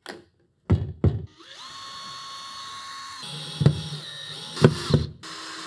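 Cordless drill running steadily, drilling into the wall through a mini-split's metal mounting plate. Its whine drops slightly in pitch about halfway and pauses briefly near the end. A few sharp knocks come about a second in and again as the bit works.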